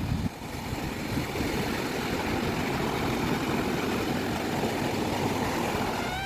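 Steady rushing beach ambience: wind buffeting the microphone over the wash of sea surf, heaviest in the low end.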